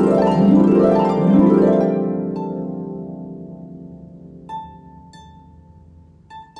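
Solo harp, plucked strings: quick rising sweeps across the strings in the first two seconds, left to ring and fade, then a few single high notes plucked one at a time. Slow, meditative improvised playing.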